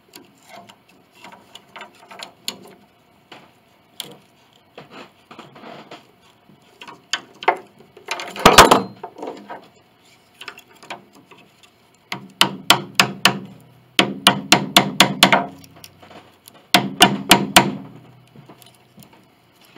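Light taps and knocks on wood, with a louder knock and scrape about eight seconds in, then three quick runs of sharp strikes at about five a second in the second half, as glued-in wooden molding is worked loose from the case of an 1867 Chickering grand piano.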